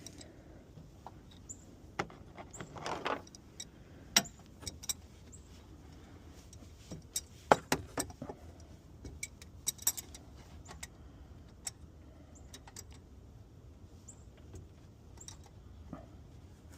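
Hand tools clicking and clinking at irregular intervals, with a few sharper metallic knocks about 4, 7 and 10 seconds in.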